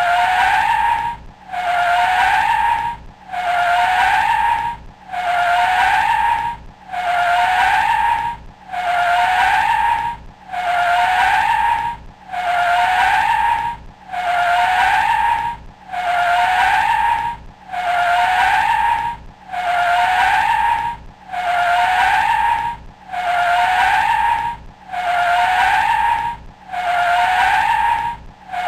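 Car tyres screeching under hard braking: a short squeal that rises slightly in pitch, repeated over and over about every 1.7 seconds with brief gaps between.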